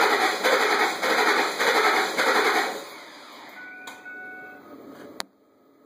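A 2006 Ford F-150 engine cranking on the starter without catching, a rhythmic whirring that stops about two and a half seconds in. Faint electronic chime tones and a couple of clicks follow, then a sharp click near the end.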